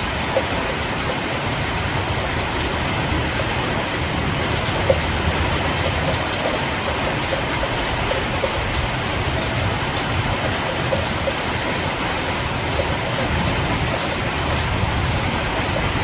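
Steady rain falling, with scattered sharper drop ticks over a continuous hiss and a low rumble underneath.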